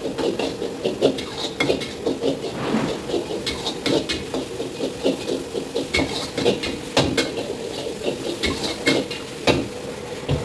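A metal spatula knocks and scrapes against a wok in quick, irregular strokes over a steady kitchen hum, as fried rice or noodles are stir-fried.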